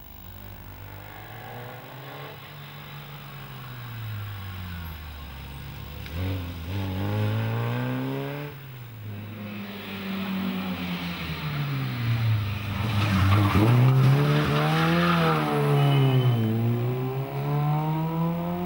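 Small four-cylinder rally car engines revving hard up and down through the gears, the pitch rising and falling with each shift; the sound grows louder and is loudest about two-thirds of the way in, as the Fiat 127 Giannini comes close.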